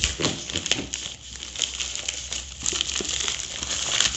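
Plastic courier mailer bag crinkling and crackling as it is torn open by hand and a box is pulled out of it, a dense run of irregular crackles.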